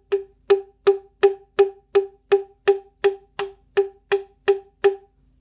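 Drumsticks tapping a steady, even beat on wooden percussion, about three short pitched knocks a second, some fourteen strikes in all, stopping about five seconds in.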